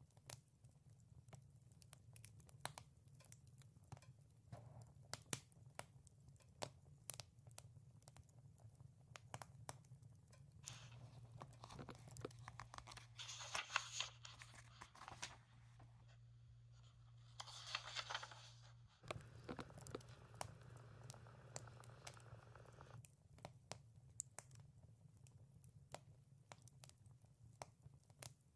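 Wood fire crackling with scattered sharp pops over a low steady hum. Partway through, paper rustles as book pages are turned, with two louder swishes.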